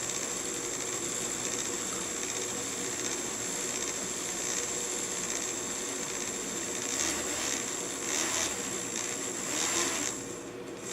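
Small fischertechnik electric motor and its plastic gears running at full speed, a steady whirring with a thin high whine. Near the end the sound wavers and briefly drops away.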